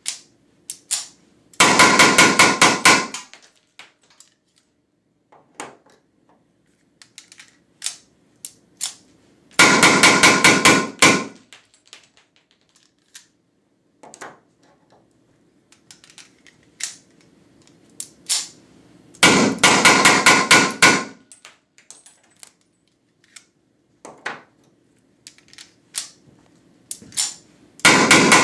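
Weihrauch HW94 9 mm P.A.K. blank-firing pistol fired in four quick strings of shots, about eight seconds apart, each string lasting about a second and a half, with the muzzle inside a foil-wrapped catch box. Between the strings come quieter clicks and knocks. The firing is part of a 1000-round endurance test.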